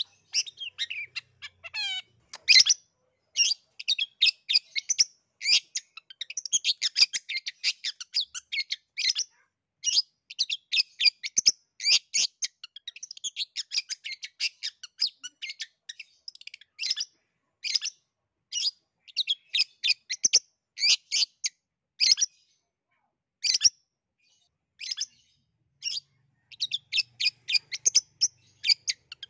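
Long-tailed shrike (cendet) singing: a fast, busy stream of short, high chattering notes in quick trains, thinning out briefly near the end.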